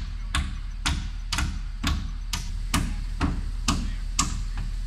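Hammer blows driving nails into wooden roof-truss framing, a steady rhythm of about two sharp knocks a second over a low steady hum.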